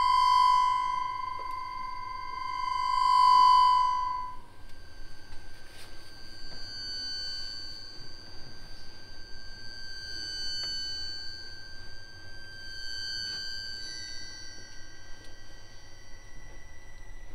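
Accordion playing long sustained high notes in a slow contemporary piece. One high held note swells twice and fades out about four seconds in, then a quieter cluster of high held tones takes over and shifts slowly.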